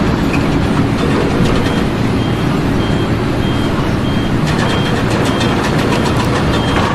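Heavy vehicle running with a steady low rumble, and a short high beep repeating evenly just under twice a second from about two seconds in.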